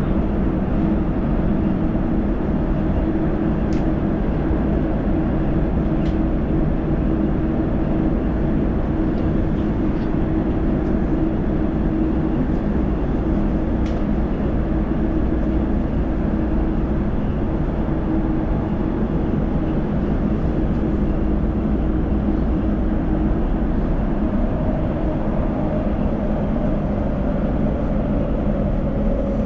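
Elizabeth Line Class 345 train running at speed through a tunnel, heard from inside the carriage as a steady rumble and hum with a few faint clicks. A faint whine comes in near the end.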